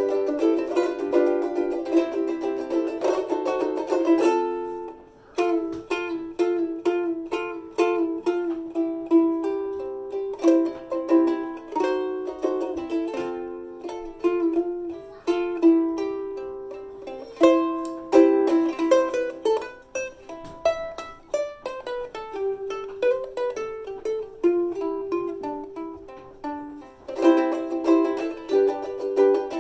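Soprano travel ukulele played solo, a run of strummed chords and plucked melody notes, with a brief break about five seconds in.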